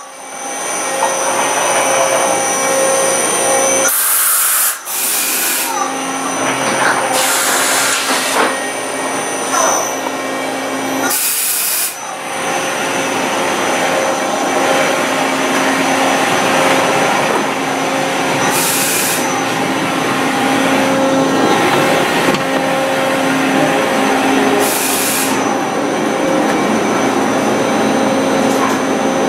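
Machine-shop background noise: a steady hum of running machinery with several held tones, broken about five times by short bursts of hiss lasting under a second each.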